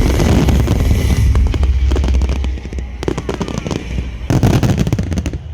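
Fireworks finale: rapid crackling and sharp bangs, densest near the end, over music from loudspeakers that fades out about halfway.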